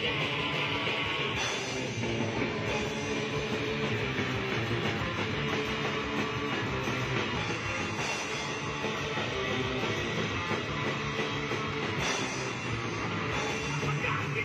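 Street-punk band playing live: distorted electric guitars, bass and a drum kit going steadily without a break.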